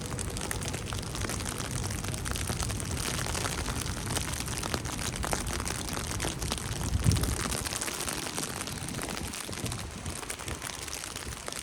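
Steady patter of falling wet snow, a dense hiss of fine ticks, with one dull thump about seven seconds in.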